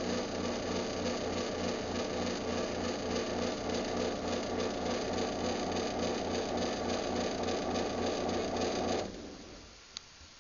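Craftsman 139.53752 garage door opener motor running through a closing cycle: a steady mechanical hum with an even pulse that stops abruptly about nine seconds in, followed by a faint click about a second later.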